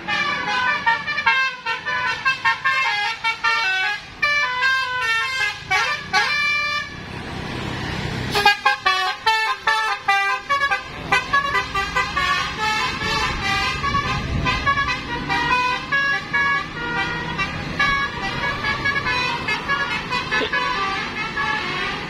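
Tour bus's 'telolet Basuri' musical air horn playing a fast melody of short, quickly changing notes almost without pause. A rush of bus noise breaks in once, about a third of the way in, as the bus goes by.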